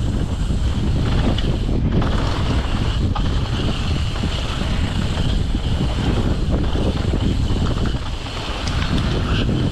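Wind buffeting the microphone of a camera on a downhill mountain bike being ridden, with the rumble and small rattles of the bike rolling over the ground underneath.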